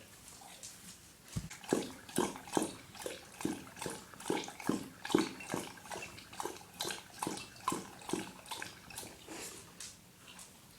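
Dog lapping water from a bowl: a steady run of wet laps, about two to three a second, that starts a second or so in and fades near the end.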